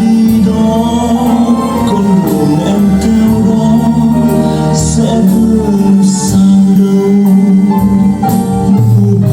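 Klipsch RP-500M bookshelf speakers, driven by a WiiM Amp streaming amplifier, playing a song with sustained pitched notes over a steady bass line and a few light percussion strikes.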